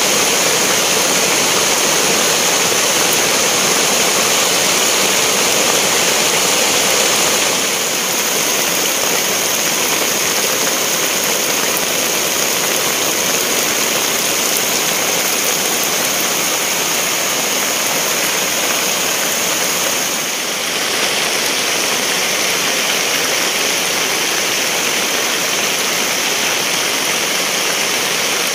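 Heavy rain pouring down, a steady loud rushing hiss.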